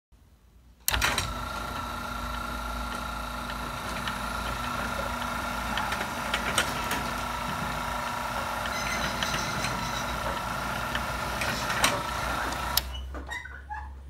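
Liftmaster 1280R garage door opener motor and gear drive running with a steady whine and scattered ticks. It starts with a click about a second in and cuts off with a click near the end, as the traveling contact on the limit screws reaches its limit and stops the motor.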